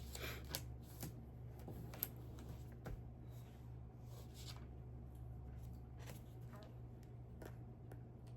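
Plastic Lego pieces being handled: soft rustling with a few sharp clicks in the first three seconds, over a low steady hum.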